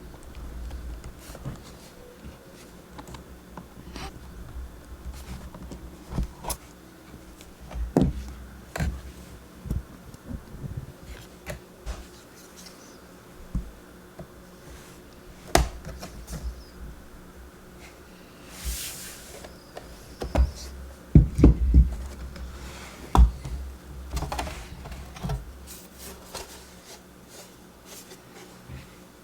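Scattered small clicks, taps and knocks of hands working on the underside of a 2012 MacBook Pro as the bottom-case screws are set aside and the aluminium bottom case is taken off. There is a cluster of heavier knocks a little after twenty seconds in.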